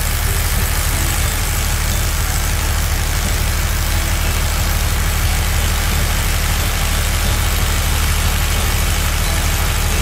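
Cartoon construction-machine sound effect: a steady, loud, low engine rumble under a constant grinding hiss, for the drill of an excavator boring through earth.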